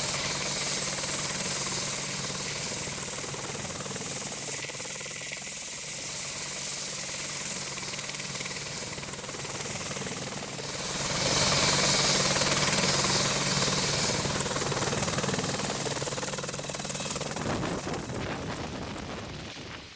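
Boeing AH-64 Apache helicopter flying, a steady rotor and turbine noise that grows louder about eleven seconds in and then fades toward the end.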